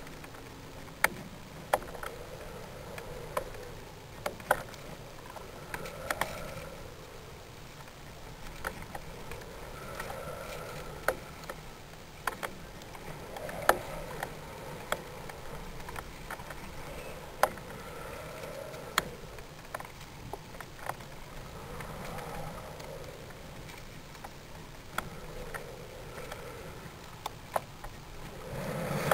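Steady rushing noise on a high-altitude balloon payload's onboard camera, broken by irregular sharp clicks and knocks, with soft whooshes swelling every few seconds as the payload hangs on its flight string.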